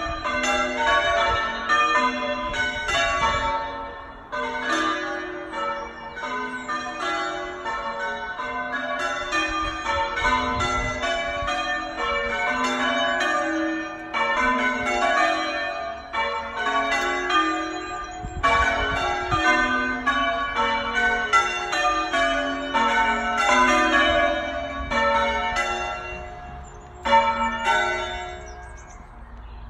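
Church tower bells ringing in a quick, continuous sequence, one strike after another at several different pitches.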